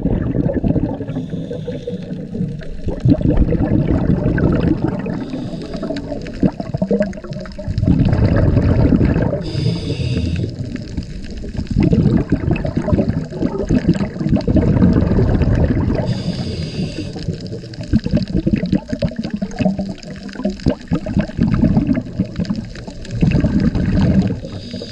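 Water rushing and sloshing around an underwater camera, heard muffled and low, swelling and fading every few seconds, with a couple of brief high hisses.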